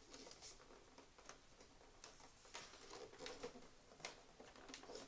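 Near silence with faint, irregular clicks and taps from hands handling a projector's plastic housing.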